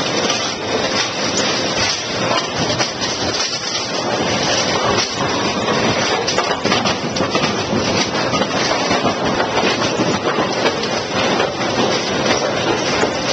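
A row of AMF 82-70 automatic bowling pinsetters running: a loud, steady, dense clatter of machinery, with pins knocking together and belts running.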